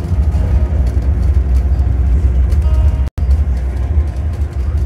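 Steady low rumble of a car driving, heard from inside the vehicle; the sound cuts out for an instant about three seconds in.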